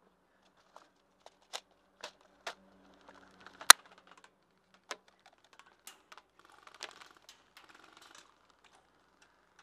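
Scattered sharp clicks and taps at irregular intervals, mostly faint, with one louder crack a little before the middle and a short patch of light clatter later on, during an airsoft skirmish.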